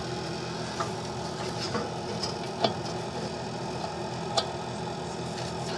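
A few sparse metal clicks and taps from hand tools and parts on a snowblower's auger gearbox housing, the loudest about two and a half seconds in, over a steady low hum.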